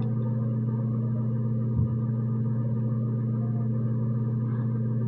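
A steady low hum, with one short knock a little under two seconds in.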